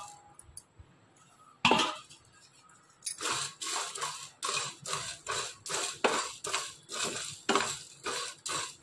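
Coriander seeds, dried ginger and whole spices being dry-roasted and stirred with a wooden spatula in a nonstick frying pan. There is one short clatter about two seconds in as the spices are tipped into the pan, then from about three seconds in a steady run of stirring scrapes, about three a second.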